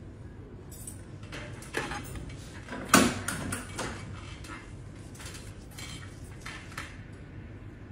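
Metal pedicure instruments clinking and tapping: a run of sharp clicks, the loudest about three seconds in.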